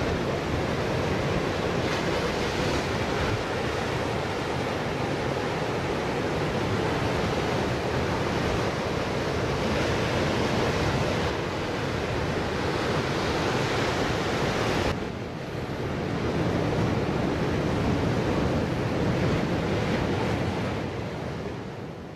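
Ocean surf breaking and washing over the rocks and shore: a steady, continuous rushing noise with no distinct single events. It dips briefly about two-thirds of the way through.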